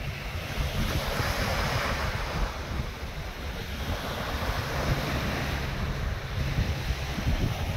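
Wind buffeting the microphone, in uneven gusts, over a steady wash of small waves breaking on the bay shore.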